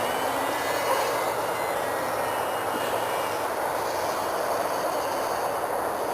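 Steady rushing noise with the faint, slightly wavering whine of the Firebird Stratos's electric motor and propeller in flight.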